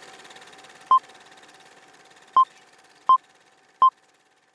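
Short electronic beeps at one steady pitch, five of them: the first alone, the rest about three-quarters of a second apart. Under them a faint steady tone and hiss fade away.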